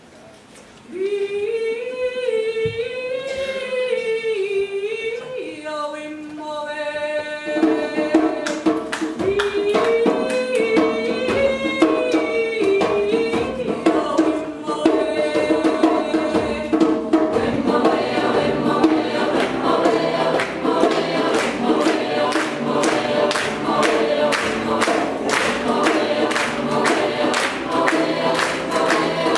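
Mixed choir singing a cappella: a single melodic line starts about a second in, the fuller choir joins in harmony about seven seconds in, and a steady percussive beat keeps time from then on.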